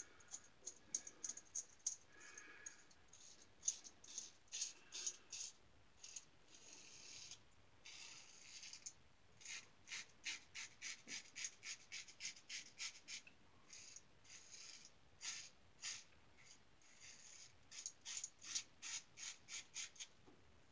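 Star Super Six single-edge safety razor with a Gem blade scraping through lathered stubble: faint, short scratchy strokes, some single and some in quick runs of several a second.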